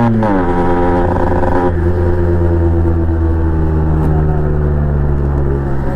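Yamaha RX 135 two-stroke single-cylinder engine held at high revs, then the throttle is let off right at the start. The revs fall quickly and the engine runs on at a lower, steady speed.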